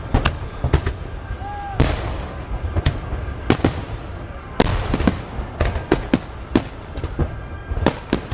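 Aerial fireworks display: a rapid, irregular string of sharp bangs from bursting shells, several a second, over a steady low rumble.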